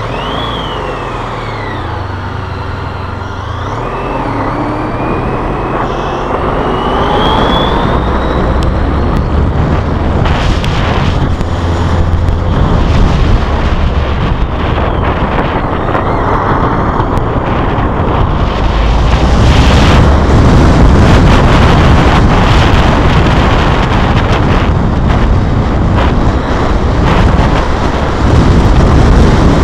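Motorcycle on the move: its engine pulling away from low speed with a rising whine, then wind rushing over the bike-mounted camera's microphone, growing louder as speed builds.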